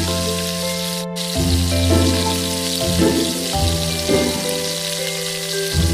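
Background music with held notes over a steady sizzle of flour-and-egg-coated peanuts deep-frying in oil. Both cut out briefly about a second in.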